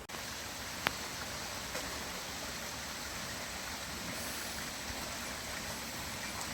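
Rainforest creek water running steadily, with a single sharp click about a second in.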